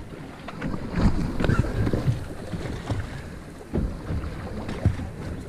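Wind buffeting the microphone on an open boat, with water splashing at the hull in irregular low thumps; a sharper knock a little before the end.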